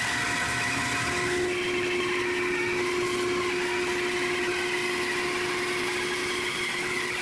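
Bandsaw running steadily under heavy load as its blade cuts slowly through a very thick glued-up block of hardwood, a steady whine over the cutting noise with a lower tone coming in about a second in. The block is close to the saw's maximum cutting height, so the saw is pushed to its limit.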